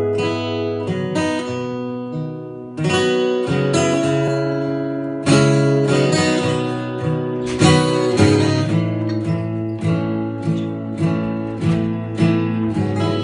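Solo acoustic guitar, chords strummed and left to ring; from about the middle on the strums settle into a steady rhythm of about two a second.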